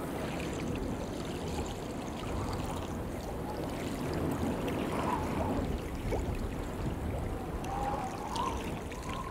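Steady rushing noise like running water, a stream or trickle, with faint wavering whistle-like tones about halfway through and again near the end.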